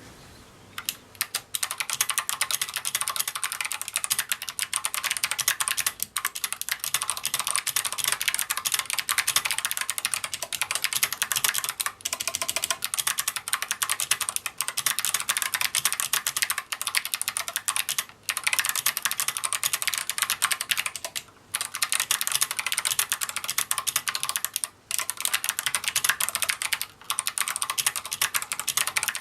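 Fast, continuous typing on a GMMK mechanical keyboard with clicky Kailh BOX Navy switches and SA-profile keycaps: a dense stream of sharp key clicks. It starts about a second in and has a few brief pauses.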